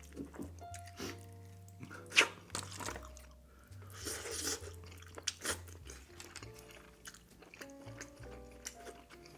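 Close-miked eating of a Cajun seafood boil: crunching and chewing, with sharp cracks, the loudest about two seconds in, and a brief hissy burst near the middle. Soft background music with a low bass line plays under it.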